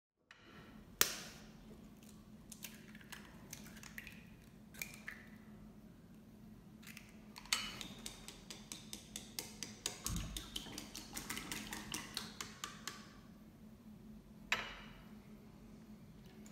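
Eggs knocked and cracked on a ceramic bowl, a handful of separate sharp knocks. Then chopsticks beat the eggs in the bowl, clicking quickly against its side about four times a second for several seconds, with another single knock near the end.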